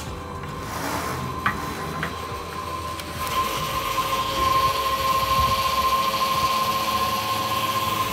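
Petrol pump dispensing fuel through the nozzle into a motorcycle's fuel tank: after a couple of clicks, a steady rushing hiss with a steady high whine sets in about three seconds in and holds.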